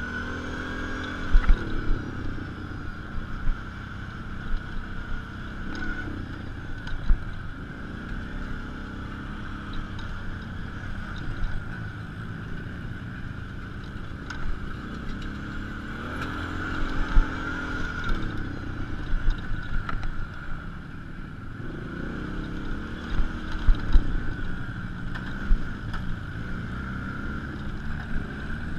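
Side-by-side UTV engine running on a rough off-road trail, its revs rising and falling several times, over a steady high whine. Occasional sharp thumps are heard.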